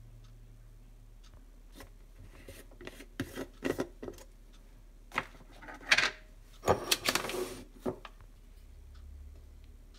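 Plastic lid being worked off a plastic yogurt tub: a run of short rubbing scrapes and clicks from about three to eight seconds in, loudest near the end of the run.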